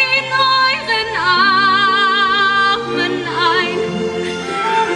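A woman singing a slow musical-theatre ballad with vibrato over instrumental accompaniment, holding one long note from about a second in.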